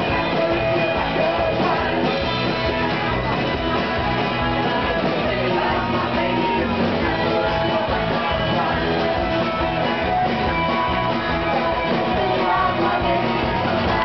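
Rock band playing live with guitars and a singing voice, loud and without a break.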